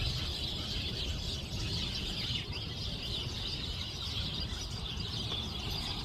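A chorus of many small birds chirping and twittering at once, a steady high-pitched wash of calls.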